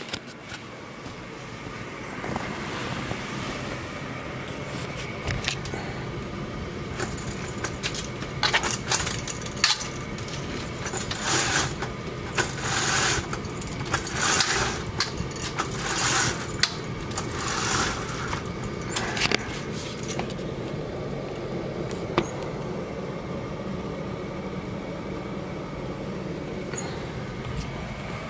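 A steady hum fills the room, with rustling, scraping and small clicks as something is handled. A run of short hissing rustles comes in the middle.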